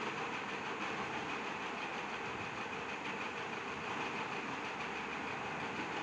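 Steady background hum and hiss with a faint, unchanging high whine, like a small fan or motor running.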